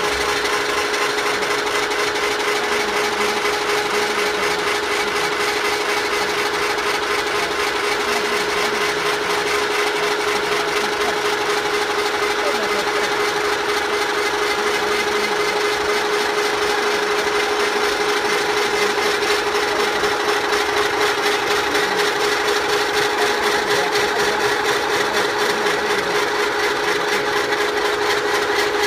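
Electric rotary drilling rig running steadily: its electric motor and gearbox turn a spiral auger boring into earth and rock. The sound is a constant hum over a grinding hiss.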